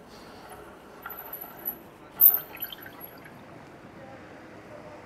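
Steady street background noise as an electric bike comes to a stop, with a few light clicks and then a sharp click with a short, very high-pitched squeak about two seconds in.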